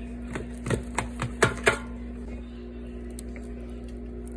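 A knife cutting through baked beef ribs on aluminium foil in a baking pan, giving a quick run of sharp clicks in the first two seconds and a few more later, over a steady hum.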